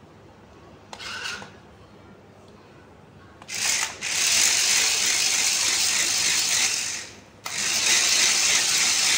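Small electric motors and plastic gearboxes of a hand-gesture-controlled stunt RC car whirring as its wheels spin and the car twists and turns on a hard floor. A brief burst comes about a second in; the motors then run loud from about three and a half seconds, cut out for a moment near seven seconds, and start again.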